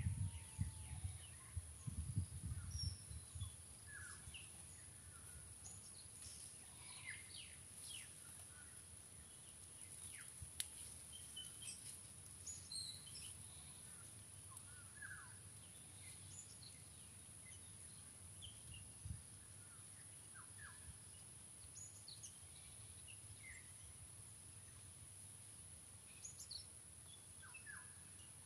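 Faint outdoor ambience of several birds calling in short, scattered chirps and whistles, over a steady high-pitched drone. A few low thumps of wind or handling on the microphone in the first few seconds.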